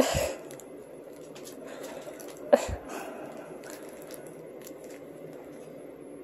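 A plastic cat scratcher toy being handled: a sharp knock at the start and a louder one about two and a half seconds in, with faint small clicks and rustling between.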